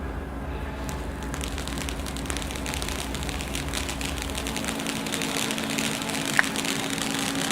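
Gold firework fountain hissing and crackling, starting about a second in and thickening, with a brief falling whistle near the end over a steady low hum.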